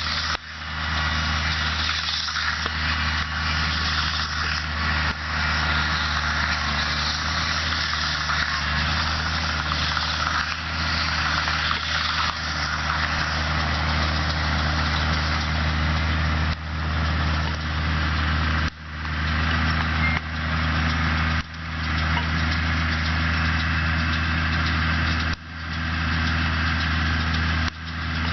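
Case IH Maxxum 140 tractor engine running steadily under a loud, even hiss. In the second half it dips sharply and briefly in level about five times, each time coming straight back up.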